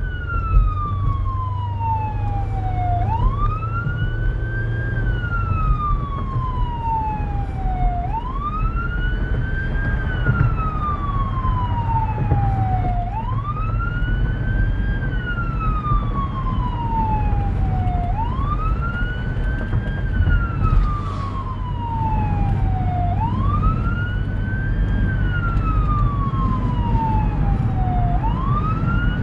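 Emergency vehicle siren in wail mode on the responding fire unit: a pitch that climbs quickly and falls slowly, repeating about every five seconds, over a steady engine and road rumble.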